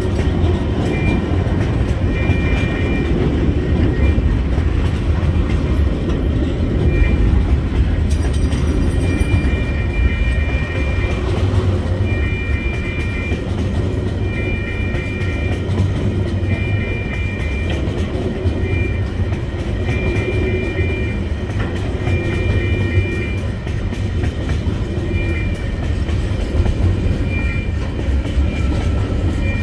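Loaded container wagons of a freight train rolling past at close range: a steady heavy rumble of steel wheels on the rails with some clickety-clack, and short high-pitched wheel squeals that come and go.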